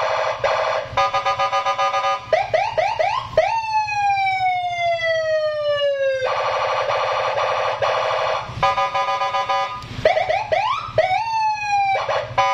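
Electronic police-escort (patwal) siren being tested, cycling through its tones: a fast pulsing tone, a run of quick rising whoops, then a long falling wail of about three seconds. The pulsing tone returns about six seconds in, and more rising whoops and a short fall come near the end.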